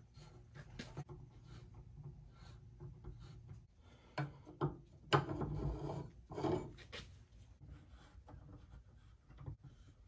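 Hand-tool and handling noise of fitting a plastic mirror-extension bracket: small clicks and rubbing of bolts and an Allen wrench against the bracket and mirror arm, with a few louder knocks and scrapes in the middle. A faint low hum runs underneath.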